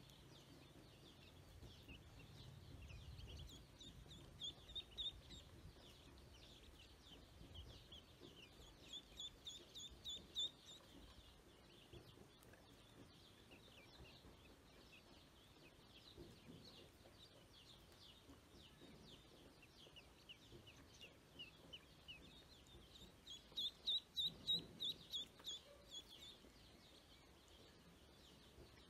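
Ducklings peeping: faint, short, high calls coming in runs, loudest in a cluster about 24 seconds in.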